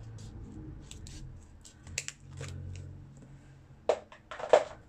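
Scissors cutting a clear plastic envelope pocket: a run of short crisp snips, with a couple of louder cuts near the end.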